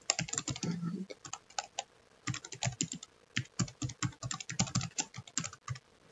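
Rapid keystrokes on a computer keyboard, in quick runs of clicks with a short pause about a second in.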